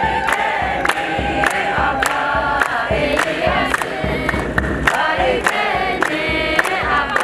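A group of women singing a hymn together, with steady hand claps about two a second keeping the beat.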